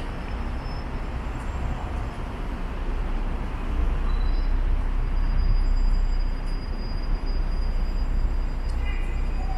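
Steady rumble of city traffic, deep and low, swelling as a heavy vehicle passes about five seconds in.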